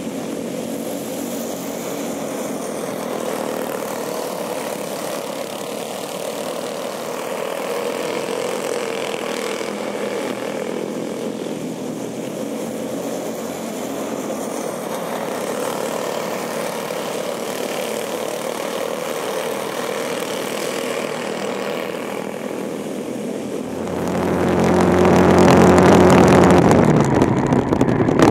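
Quarter midget race car engines running out on the dirt track as a steady distant drone. About 24 seconds in, one car's engine comes in close and loud, then fades near the end.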